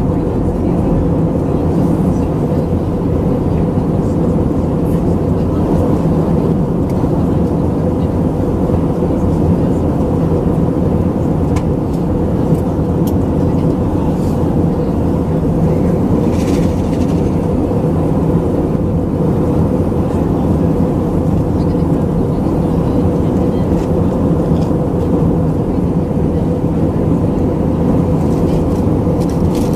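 Steady cabin noise inside an Airbus A319-112 in flight on descent: the loud, even drone of airflow and its CFM56 engines, with a steady low hum.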